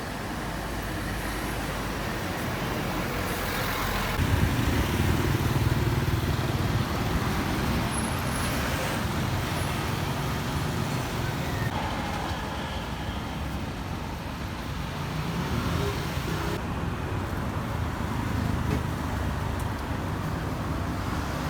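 Street traffic: vehicle engines running and passing, with a louder low rumble about four seconds in.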